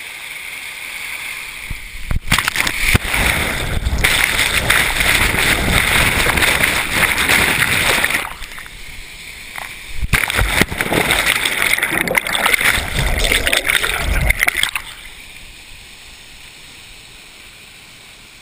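Waterfall water rushing and splashing hard over the camera as it goes over the falls, loud and turbulent with crackling spatters. It eases for a couple of seconds about eight seconds in, comes back loud, then drops to a quieter steady hiss about fifteen seconds in as the camera goes down into the plunge pool among bubbles.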